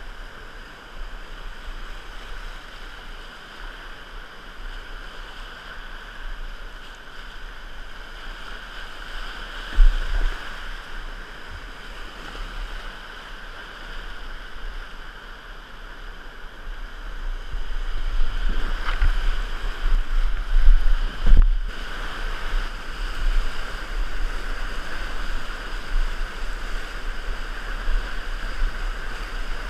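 Whitewater rapids rushing around a kayak, a steady wash of water that grows louder about two-thirds of the way through as the boat runs into a bigger rapid. A couple of sharp thumps stand out, one about a third of the way in and a louder one later.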